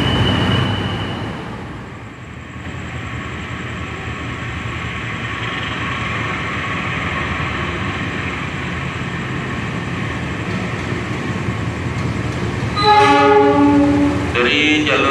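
A locomotive-hauled passenger train approaches the platform with a rumble that slowly grows louder. About 13 seconds in, the locomotive's air horn sounds loudly as a chord of several tones, and it blows again near the end. Before that, in the first two seconds, the noise of a departing train dies away.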